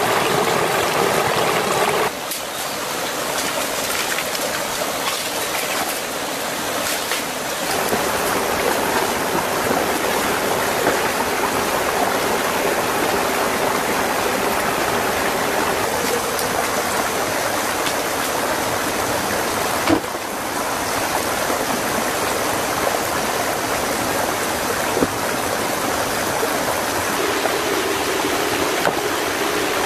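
Small forest stream running and splashing over rocks in a steady rush of water, with a couple of brief sharp clicks near the middle and later on.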